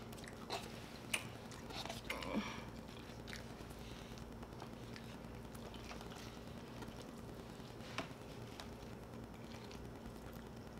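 Eating sounds: chewing, with scattered small clicks and taps of a plastic fork and fingers on paper plates as grilled chicken is pulled apart, over a steady low hum.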